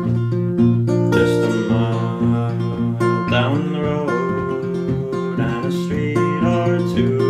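Acoustic guitar played with steady, repeated plucked notes over a ringing low bass note.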